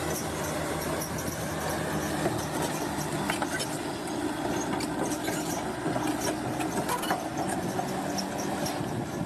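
Heavy tracked earthmover, such as a bulldozer, working: a steady diesel engine with scattered metallic clanks and clicks from its steel tracks.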